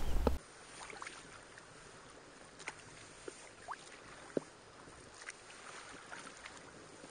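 Wind buffeting the microphone for a moment, cut off suddenly. Then faint water sounds of a kayak being paddled on a lake, with a few brief, thin chirps.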